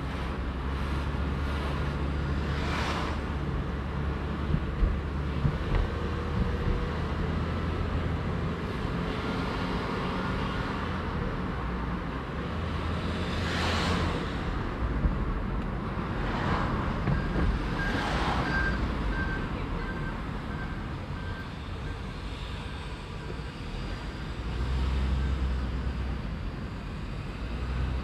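Car driving on a town street: steady engine and road rumble, with several passing vehicles swishing by.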